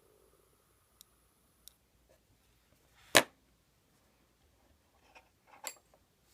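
One loud, sharp click about three seconds in, with a few faint clicks before it and a short cluster of clicks and rustles near the end, from handling the paracord and small tools.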